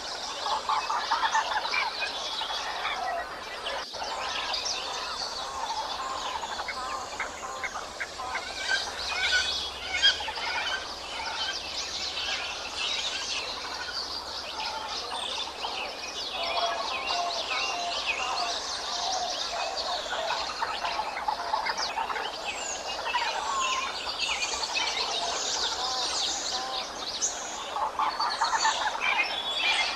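A chorus of many wild birds singing and chirping at once: overlapping short chirps and trills, dense and continuous.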